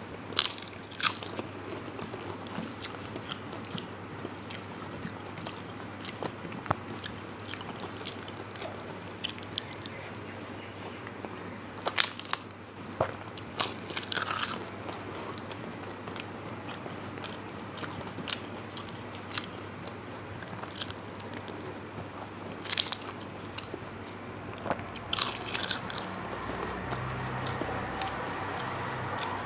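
Close-up eating sounds of a person eating rice and curry: chewing and mouth sounds with scattered sharp clicks and smacks, some in quick clusters, over a steady low hum.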